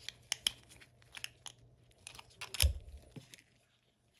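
Gloved hands handling a clear plastic coin capsule: scattered small clicks and crinkles, with one louder knock about two and a half seconds in, then it goes quiet.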